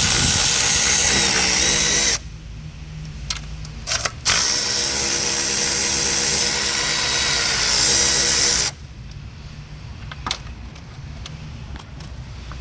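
Cordless power tool spinning out bolts: a steady whir lasting about two seconds, a short blip, then a second run of about four seconds that winds down as it stops. Light metallic clicks follow.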